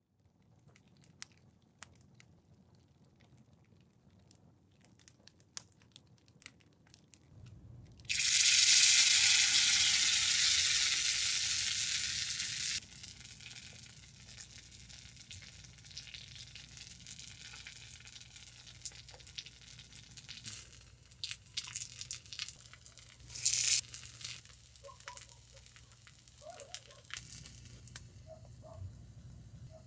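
Small wood fire crackling faintly. Then a sudden loud sizzle as food starts frying in hot oil in a miniature cast-iron pan, dropping after a few seconds to a steady quieter sizzle with crackles. A short louder sizzle comes back once, a little past two-thirds of the way through.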